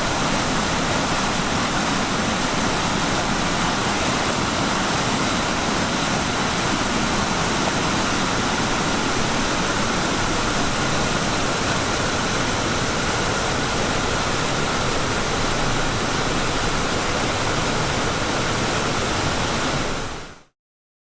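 Waterfall rushing, a steady unbroken roar of falling water that fades out quickly about twenty seconds in.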